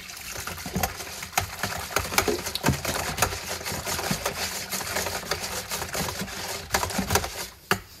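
Whisk beating milk powder into warm water in a plastic ice cream pail: a fast, uneven run of clicks and scrapes against the pail, easing off near the end.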